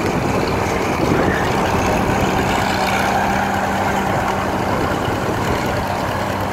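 Antique farm tractor engine running at a steady speed, an even low engine hum.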